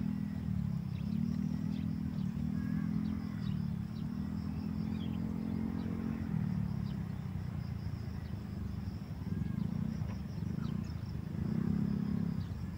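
An engine running steadily, its low hum rising and falling in pitch every second or so. Faint high chirps and a thin high buzz sit behind it.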